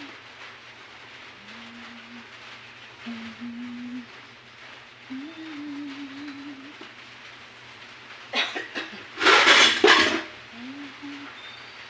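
Several low drawn-out cooing calls of a dove, about a second each. About eight seconds in comes a loud clatter of dishes and pots lasting about two seconds.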